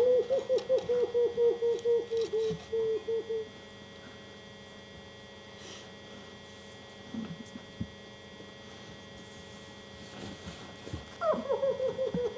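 A person's high-pitched voice making a rapid run of short, repeated sounds, about five a second, which stops about three and a half seconds in. A few soft knocks follow, and near the end the same voice starts another run.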